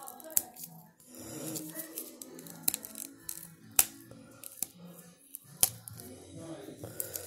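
Clear plastic wrapper crinkling and snapping in sharp clicks as it is peeled off a dinosaur dig-kit egg. Background music plays underneath.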